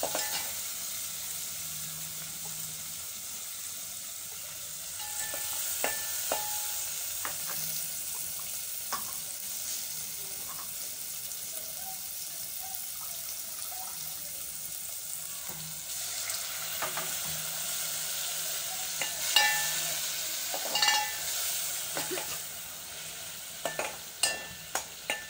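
Tomato and onion masala sizzling as it fries in an aluminium pot, with a steel spoon stirring and scraping against the pot now and then, the clinks coming more often in the last few seconds.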